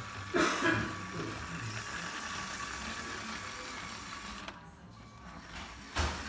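LEGO model steam locomotive running on plastic LEGO track: the steady whir of its electric train motor and gearing. There is a brief louder rattle about half a second in, and a sharp click near the end.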